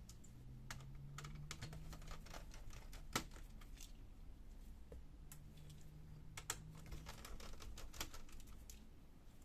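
Small, irregular clicks and taps of a laptop's internal parts being handled as cables and screws are freed from the main board, with one sharper click about three seconds in. A faint low hum comes twice.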